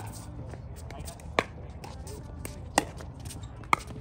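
Pickleball paddles striking a hard plastic ball in a rally: three sharp pops about a second and a half apart, with fainter taps between them.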